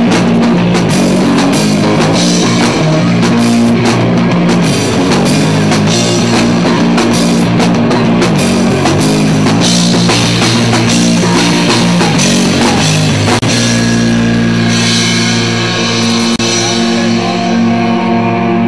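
A live rock band plays loudly: electric guitar, bass guitar and drum kit. About thirteen seconds in, the drumming thins out and the guitars ring on in long held notes.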